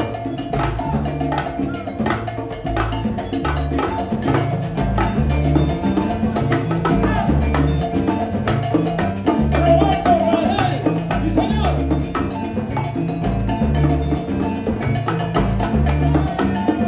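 Salsa band playing, with bongos and cowbell striking busily over a repeating bass line.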